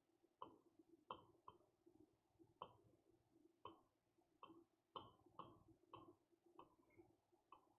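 Faint, irregular clicks and taps of a pen on a smart board's surface as a word is written by hand, about a dozen of them, over near-silent room tone.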